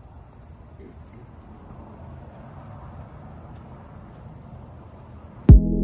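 Crickets trilling steadily in one high, unbroken tone. Near the end, music cuts in abruptly with a deep bass hit, and the trilling stops at that moment.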